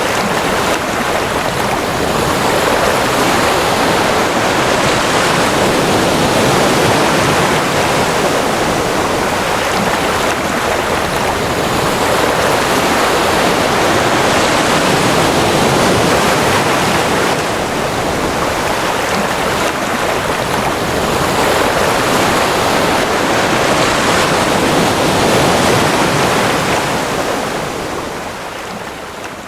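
Ocean surf rushing steadily, swelling and easing roughly every ten seconds as waves wash in, then fading out near the end.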